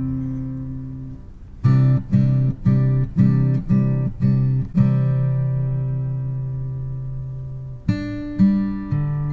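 Background music: an acoustic guitar playing slow plucked notes, with a quick run of about seven notes starting about a second and a half in, then a long ringing note and new notes near the end.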